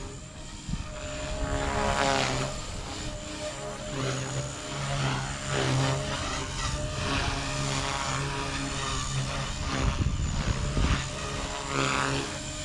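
Blade Fusion 180 electric R/C helicopter flying with its canopy removed: the brushless motor and rotor blades give a steady whine and whir whose pitch rises and falls several times as it manoeuvres.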